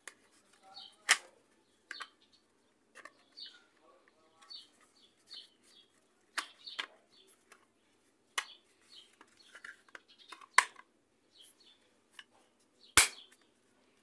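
Sharp plastic clicks and taps from a Maytag washing-machine timer's plastic housing being handled and pressed together, coming irregularly with faint squeaks of plastic between; the loudest clicks come about a second in and near the end.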